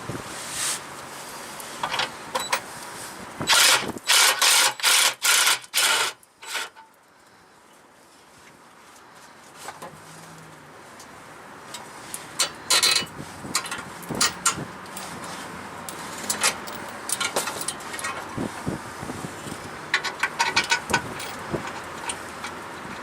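Hand work on a vehicle: a run of about six loud, sharp metal knocks in quick succession a few seconds in, then scattered lighter clicks and clanks of tools and parts being handled.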